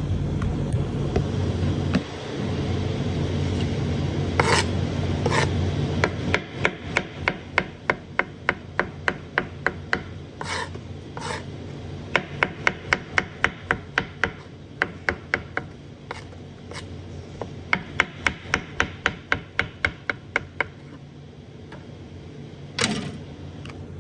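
Knife slicing mushrooms on a plastic chopping board: quick, even knocks of the blade on the board, about five a second, in several runs with short pauses between them. A steady low hum runs underneath, louder in the first few seconds.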